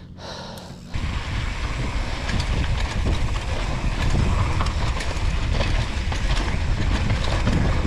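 Mountain bike riding fast down a rough trail: wind rushing over the GoPro microphone, with a steady rumble and rattle from the bike, starting suddenly about a second in.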